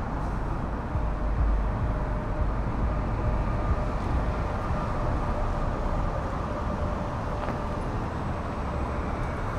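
Downtown street ambience: a steady rumble of traffic with a faint engine hum.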